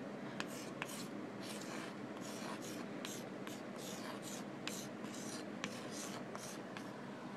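Chalk writing on a chalkboard wall: a run of short scraping strokes, with light clicks where the chalk touches down.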